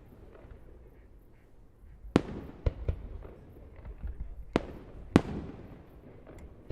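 Aerial fireworks shells bursting: four sharp bangs, each trailing off in an echoing rumble. The first comes about two seconds in, the second half a second later, and the last two come a little over half a second apart near the end.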